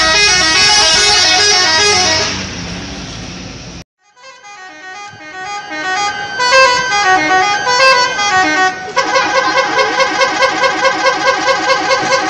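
Indonesian bus 'telolet' musical horns playing tunes of stepping notes, loud and held for the first two seconds, then fading. After a sudden break about four seconds in, another horn tune plays, ending in a fast run of repeated notes, about five a second.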